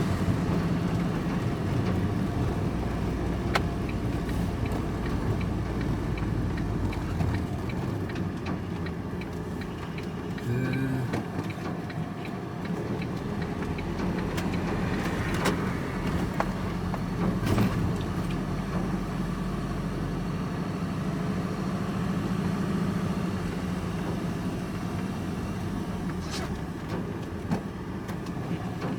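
Vehicle engine and road noise heard from inside the cab while driving, a steady low hum with a few sharp clicks and knocks.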